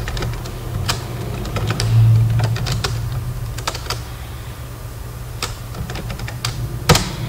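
Computer keyboard being typed on: irregular single key clicks, with a sharper click near the end, over a steady low hum.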